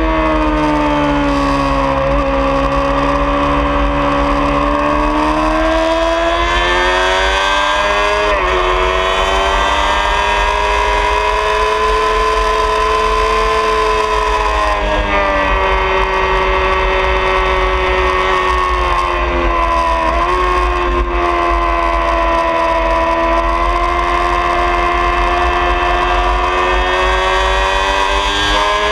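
2003 Honda CBR600RR's inline-four engine running hard at high revs on track, its note climbing and falling with speed and breaking off sharply a few times as gears are changed. Wind rushes over the microphone underneath.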